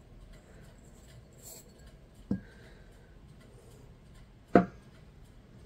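Glassware knocking down onto a wooden tabletop twice, about two seconds apart, the second knock louder. Soft handling sounds come in between.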